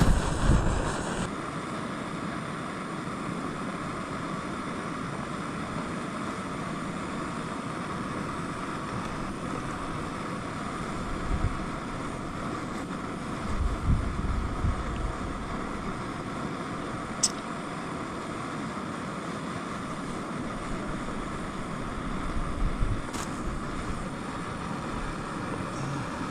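Steady rushing of a breeze, with a few low gusts buffeting the microphone and a single sharp click a little past the middle.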